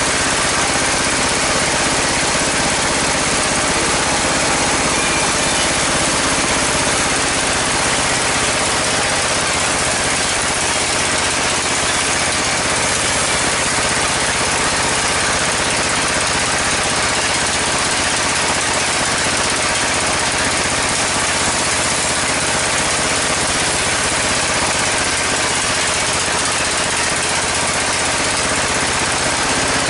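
Sawmill band saw and the engine driving it, running steadily: a constant mechanical drone with a hiss over it, unchanging throughout.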